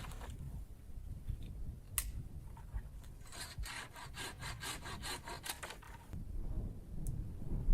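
A single sharp click, then a quick run of even rasping strokes, about five a second for a couple of seconds, like something being scraped or sawn.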